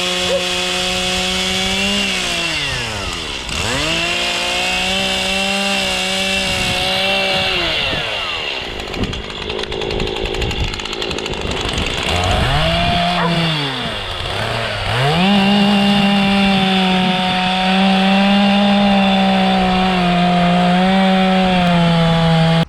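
Two-stroke chainsaw running at high revs while carving Scotch pine. Several times the engine note falls away sharply and climbs back, most deeply around a third of the way in and again in a double dip past the middle.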